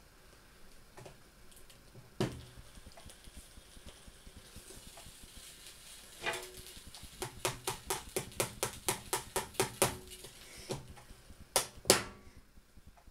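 Handling of a small hinged electric contact grill while a knife works at the food inside: a sharp click, a run of quick light clicks about four a second for some three seconds, then two loud clacks as the grill's lid is shut.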